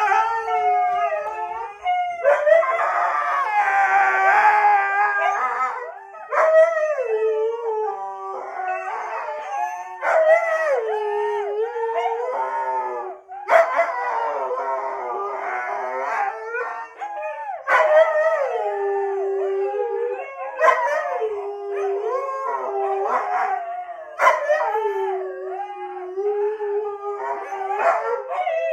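Three huskies howling together, their voices overlapping and gliding up and down in pitch almost without pause, with short sharp yips breaking in every few seconds.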